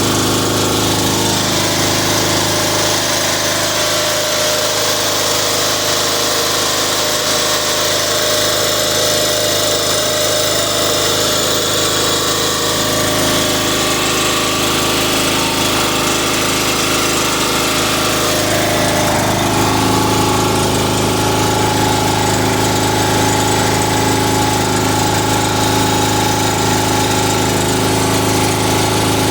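Riding lawn mower engine running steadily after sitting for a year; its note changes about two-thirds of the way through. It won't idle all the way down, which the owner puts down to a carburetor that probably needs cleaning.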